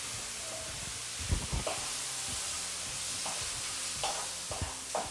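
Diced chicken breast and onion sizzling steadily in a frying pan, with a few short knocks and scrapes of a wooden spoon against the pan as it is stirred.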